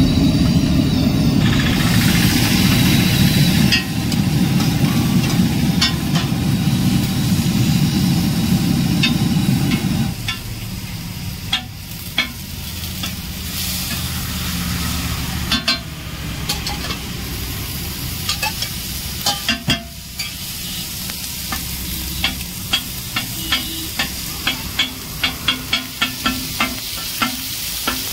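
A loud steady low hum for about the first ten seconds, which then stops. After that, a steel spatula scrapes and taps on a flat iron griddle as a potato and tomato masala sizzles, with the taps coming quickly, several a second, near the end as the filling is chopped and mashed.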